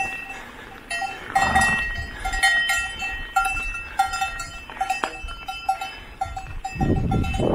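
Bells on grazing livestock clanking irregularly, several rings a second. Two brief bursts of rushing noise come about one and a half seconds in and near the end.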